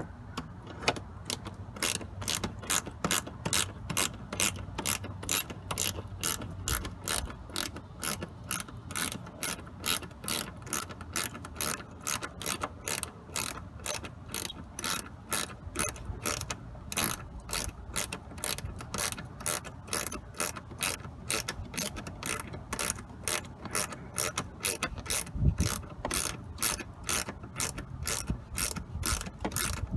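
Hand ratchet clicking steadily at about three clicks a second as a screw is backed out of the car's wheel-well trim.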